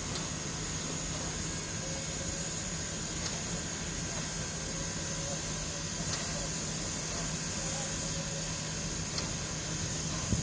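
Standing Soviet L-class (Л) steam locomotive hissing steadily as steam escapes, over a constant low hum, with a few faint metallic ticks.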